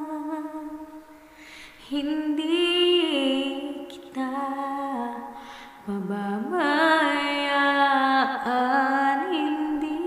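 A woman singing a slow Tagalog ballad into a BM-800 condenser microphone. She holds long notes with vibrato and pauses for breath about a second in and again at about five and a half seconds.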